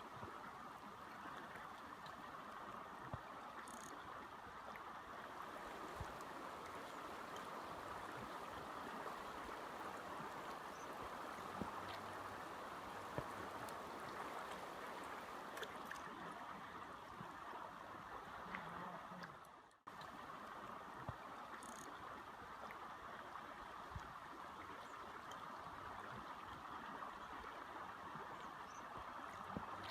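Rushing river water, a steady even rush with a few faint ticks, cut briefly about two-thirds of the way through.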